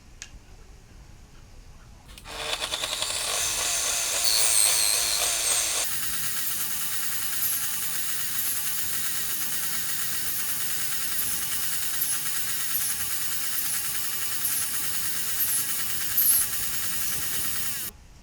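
A power tool running in a woodworking shop, starting about two seconds in, louder and wavering in pitch for the first few seconds, then running steadily until it cuts off suddenly near the end.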